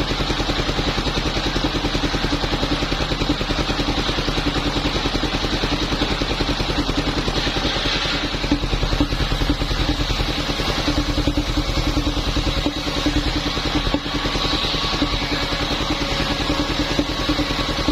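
Small petrol engine of a wood-cutting saw running steadily, with fast, even firing pulses.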